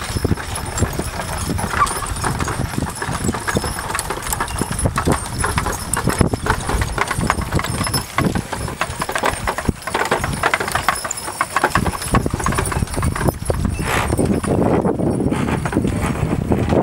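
Hooves of draft horses and saddle horses clopping on grassy ground as a wagon train passes, with many irregular hoofbeats overlapping.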